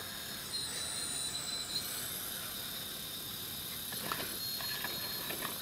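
Electric hydraulic pump of a scale RC CAT excavator running with a steady high whine and hiss as its valves work the arm. A few sharp clicks and scrapes about four to five seconds in as the bucket digs into stony dirt.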